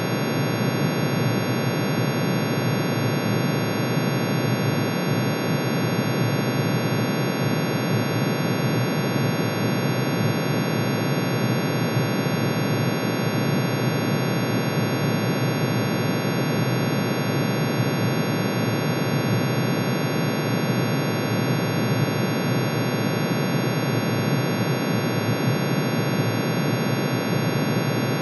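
Synthesized sound of iron's atomic emission spectrum: many sine waves, one per spectral line, shifted down into the audible range and summed into one dense, unchanging drone. Its many steady tones from low to high blend into a noisy, buzzing chord.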